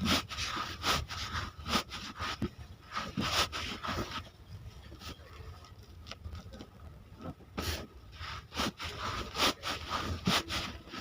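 Irregular taps, knocks and scrapes of hand work on wood, thinning out for a few seconds in the middle.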